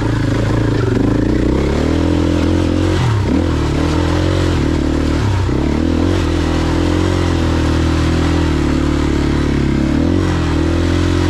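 Enduro dirt bike engine heard from on board, pulling at a steady throttle. The revs drop and climb back about three seconds in, again near five and a half seconds, and briefly near the end.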